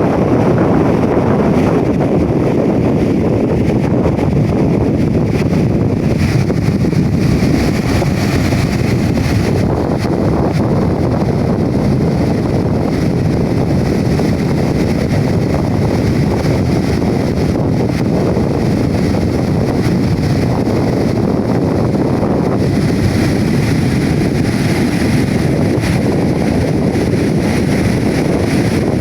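Strong sea wind buffeting the microphone as a steady low rumble, over the wash of waves on a sandy beach.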